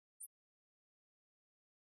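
Near silence: the sound track is almost empty, with one very short high-pitched blip about a quarter second in.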